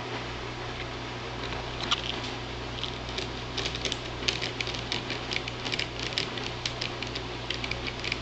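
Light, irregular clicking and tapping, several clicks a second, starting about two seconds in and getting busier, over a steady low hum.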